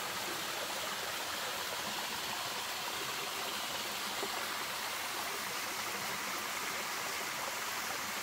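A small waterfall and the rocky cascade below it running into a creek pool: a steady, even rush of falling and splashing water.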